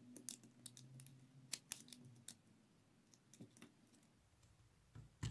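Faint, scattered small clicks and ticks of a thin metal chain and rhinestone pieces being handled between the fingers, thicker in the first couple of seconds and sparser after.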